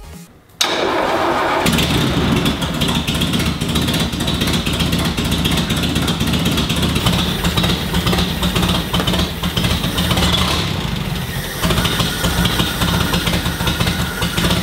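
Land Rover Series 3's 2.25-litre four-cylinder petrol engine, with a freshly rebuilt carburettor, comes in abruptly about half a second in and runs steadily.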